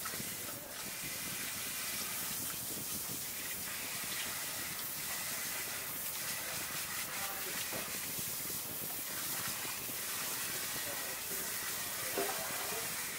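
Tap water running steadily and splashing into a perforated aluminium bowl in a stainless-steel sink as a whole conger eel is rinsed and rubbed under the stream.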